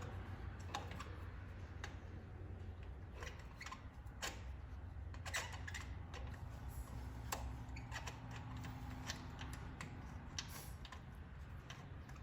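Scattered, irregular clicks of a ratchet and socket working a spark plug loose, over a steady low hum.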